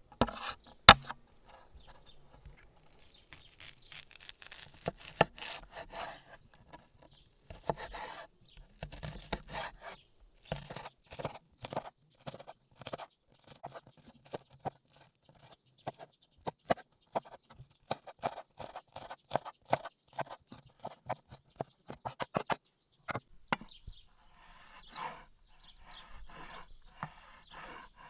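Cooking over a campfire: irregular sharp crackles and clicks throughout, with a few short scraping or rustling passages.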